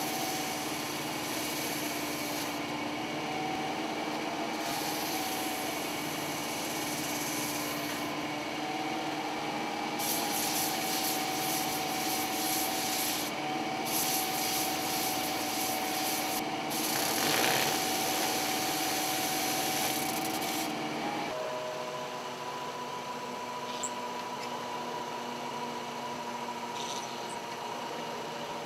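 Belt sander running with a steady motor hum, a wooden tool handle pressed against the abrasive belt in repeated passes of a few seconds each, each pass a loud gritty hiss. About two-thirds of the way through, the sanding stops and a different machine hums at a steadier, slightly higher pitch.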